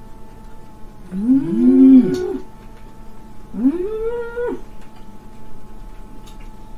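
Two people give long, wordless exclamations of delight while chewing a mouthful of food. Each rises and then falls in pitch: first two voices together about a second in, then one voice again near the middle.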